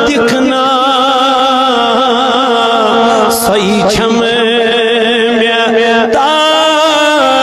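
A man singing a naat, a devotional Islamic poem, in a chanting style with long, wavering held notes. His voice is amplified through a microphone and PA system.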